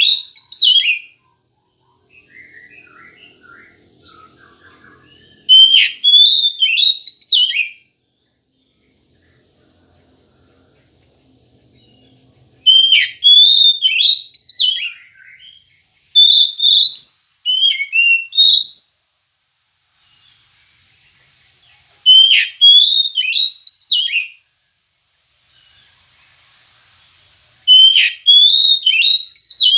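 Oriental magpie-robin (kacer) singing: loud, clear whistled phrases of quick rising and falling notes, each two to three seconds long, repeated about six times with short pauses between. There are faint softer notes in some of the gaps.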